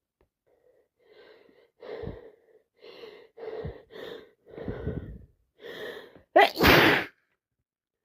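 A sick woman's sneeze build-up: seven short catching gasps in a row, then one loud sneeze near the end.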